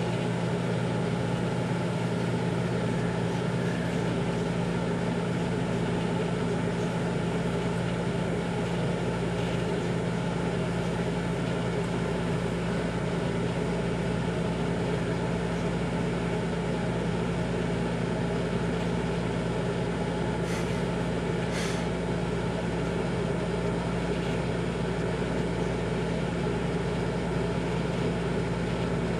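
Microwave oven running with a steady hum while it heats a bar of Ivory soap, with two faint clicks about two-thirds of the way through.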